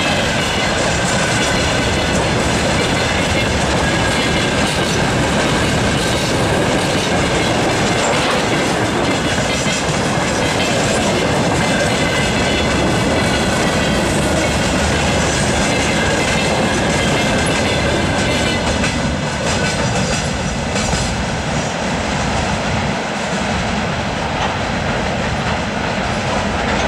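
Loaded freight wagons rolling past close by: a steady rumble and clatter of steel wheels on the rails, with thin high squealing tones in the first half. The noise thins out after about twenty seconds as the end of the train goes by.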